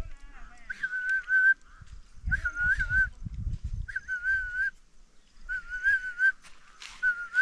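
A small hand-held flute blown in about five short notes, each under a second, all at the same high pitch with a slight warble. A low rumbling noise comes and goes between them.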